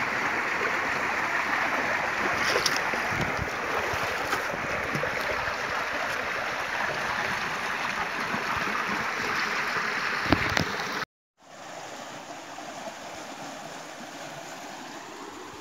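Stream water gushing steadily out of a channel opening into a hand-held push net, a loud even rush with a couple of faint knocks. It cuts off abruptly about eleven seconds in, leaving a much quieter steady hiss.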